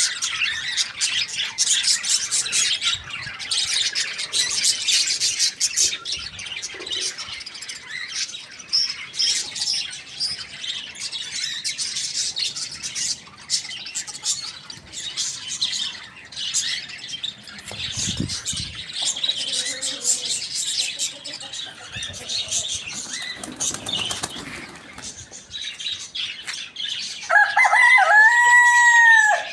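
Many small birds chirping densely throughout. Near the end a rooster crows once, a call of about two seconds that rises, holds and falls, louder than the chirping.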